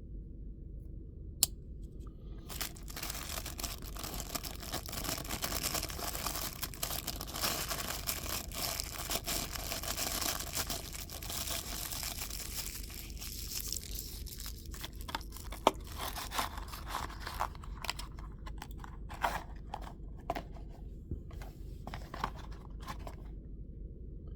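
Packaging wrapping being torn and crinkled by hand while a knife is unwrapped from its box, with a sharp click about a second in and scattered clicks and taps in the second half as the box and knife are handled.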